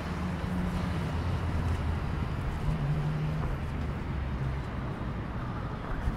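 Steady rumble of city road traffic, with the low hum of vehicle engines running.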